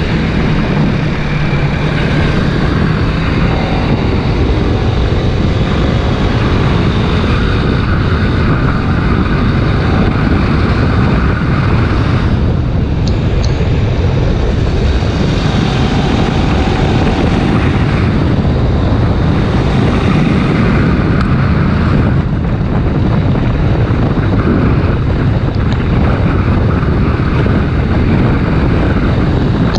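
Kawasaki Ninja 250 RR Mono's single-cylinder engine running under way, heard through heavy wind noise on a helmet or bike-mounted action camera. The higher part of the sound drops away briefly about three times.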